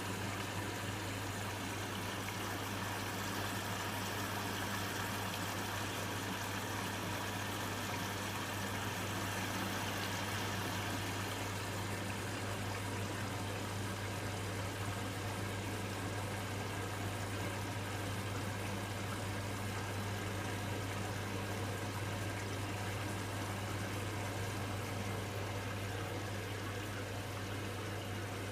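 Hotpoint washing machine running steadily late in its cotton cycle: a constant low hum with a rush of water inside the drum.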